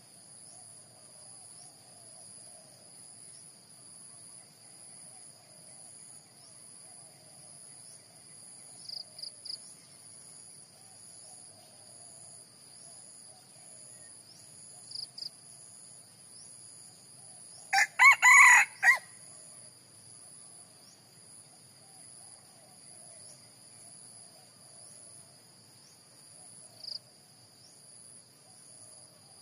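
A red junglefowl rooster of the white-eared type crows once, a short clipped crow of about a second, a little past the middle. Under it runs a steady high-pitched insect drone, with a few brief high chirps.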